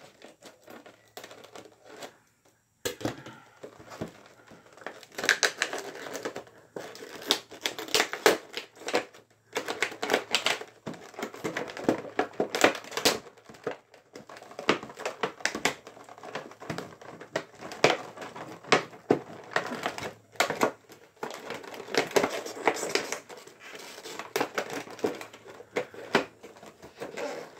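Stiff clear plastic blister packaging crinkling and crackling with irregular clicks and snaps as it is pried and pulled open by hand. The first few seconds are quieter.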